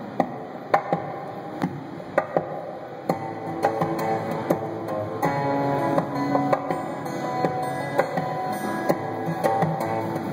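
Steel-string acoustic guitar played fingerstyle and amplified, ringing notes and chords cut through by sharp percussive hits every second or so.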